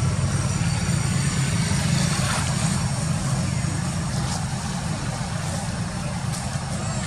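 A steady, low engine-like rumble.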